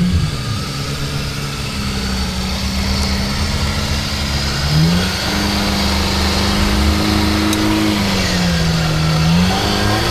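Old Jeep Cherokee's engine revving under load as it is driven through mud, its pitch climbing about five seconds in, holding, sagging and then rising again near the end.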